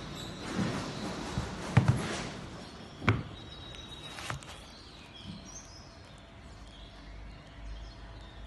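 Handling noise of a sneaker turned and flexed in the hands: rubbing and rustling of the knit upper and rubber sole, with soft knocks, the loudest about two seconds in and another about three seconds in.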